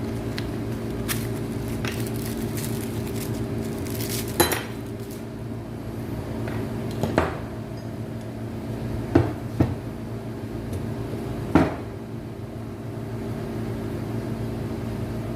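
Metal clinks and knocks from a new ball bearing being fitted onto a window AC fan motor's rotor shaft: a handful of sharp, separate knocks over a steady hum.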